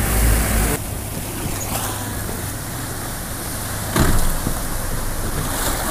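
Wind and water noise on a small boat under way with its Honda 150 outboard motor running. A heavy wind rumble on the microphone drops suddenly under a second in, and a brief loud thump comes about four seconds in.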